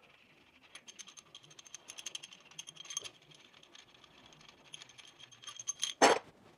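Long steel head studs clinking and rattling against one another as they are pulled one by one from a cast-iron engine block and gathered in a hand: a scatter of light metallic clicks, with one louder ringing clink near the end.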